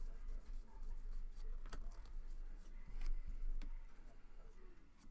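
Trading cards being flicked through by hand: soft slides of card stock on card stock with a few sharp flicks, over a low steady hum.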